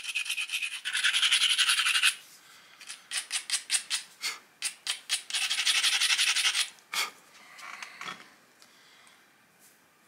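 Rasping, scraping strokes of a hand-held knapping tool worked along the edge of a stone flake, shaping its edge. It comes in bursts about a second long with quick single scratches between, and it dies away to quiet a couple of seconds before the end.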